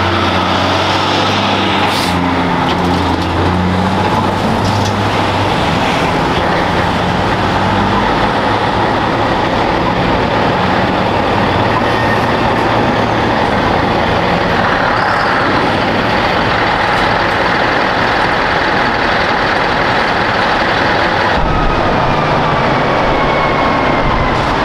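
Heavy trucks' diesel engines running as the trucks pull slowly past, a Kenworth towing a B-train first and then Scania rigs. A steady engine note for the first several seconds gives way to a steady, dense rumble.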